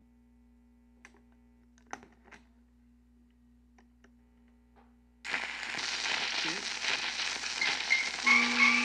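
Turntable with a faint steady hum and a few light clicks as the tonearm is handled. About five seconds in, the stylus drops onto a 78 rpm shellac record and loud groove hiss and crackle starts. Near the end, the recording's Peking opera music begins under the surface noise.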